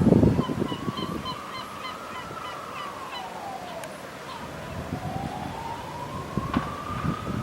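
Emergency vehicle siren in a slow wail, rising, falling and rising again. A quick run of short high chirps sounds over it in the first few seconds, with gusts of wind on the microphone at the start.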